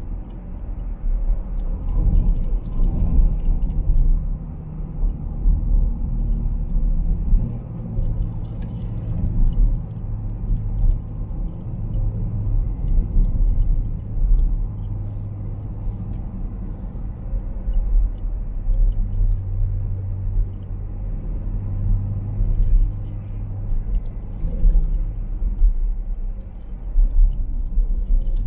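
Car engine and road noise heard from inside the cabin while driving: a low drone whose pitch shifts a few times.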